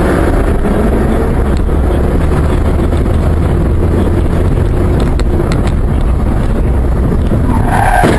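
Steady loud rumble of a moving vehicle with wind buffeting the microphone, strongest in the low end, with a brief higher tone near the end.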